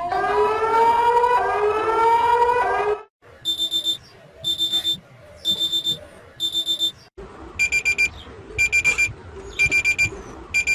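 Electronic emergency alert tones in three different patterns, one after another. First a series of rising sweeping tones. After a sudden cut comes four bursts of rapid high-pitched beeps about a second apart, then a lower, fuller beep pattern, also in quick bursts about once a second.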